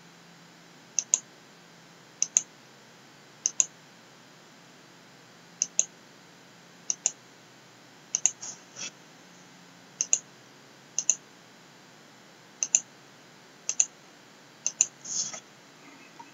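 Computer mouse clicking: about a dozen short, sharp clicks, each a quick press-and-release pair, coming at irregular intervals of roughly a second, with a faint steady background hiss between them.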